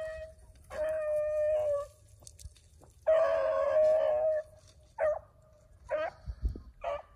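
Beagles baying on a rabbit's scent trail: two long drawn-out bawls, then three short chop barks near the end.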